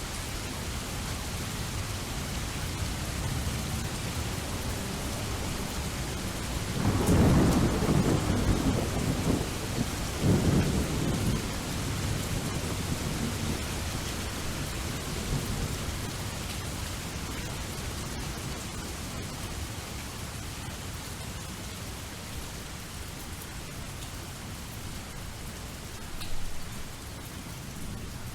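Steady rain falling, with a roll of thunder that builds about seven seconds in, swells again a few seconds later and then fades away.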